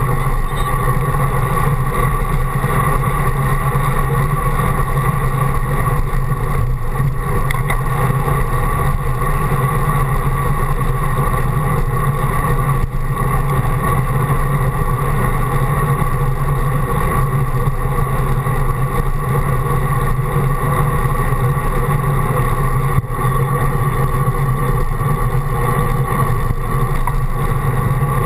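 Steady rushing wind and road noise on a bicycle's handlebar-mounted action camera while riding, a constant droning rumble with a deep hum.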